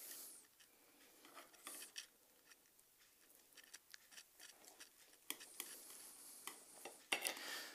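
Faint sounds of a knife slicing through a cooked venison roast on a plate: soft scrapes and scattered light clicks of the blade and tongs against the platter.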